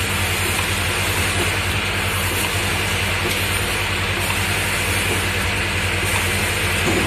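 Automatic twist-off cap assembly machine running steadily: a continuous low hum under an even mechanical noise.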